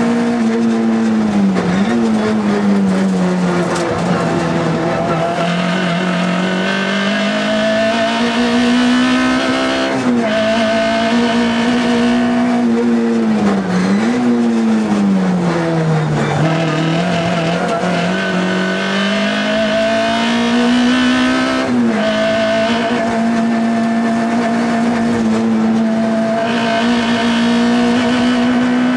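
Škoda Felicia Kit Car rally car's engine at high revs, heard from inside the cabin. Its note falls and climbs again several times as the driver changes gear and lifts, then holds steady near the end.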